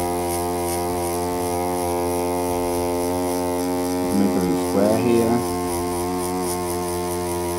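An old coil tattoo machine buzzes steadily while running. It is set to a longer stroke and higher power for packing solid black ink. About four to five seconds in, a brief sound rising in pitch breaks in twice over the buzz.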